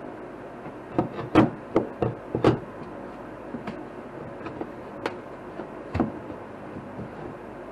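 Sharp knocks and cracks of a hand tool being worked in behind wood paneling to pry it off the wall. There is a quick run of about half a dozen starting about a second in, then a few scattered ones, over a steady hum.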